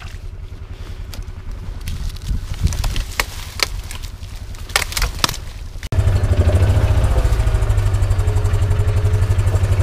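Kawasaki utility vehicle's engine running at idle, with scattered sharp cracks and snaps of sticks and brush. About six seconds in, after a cut, the engine runs louder and steadily, working as the vehicle drives over snow.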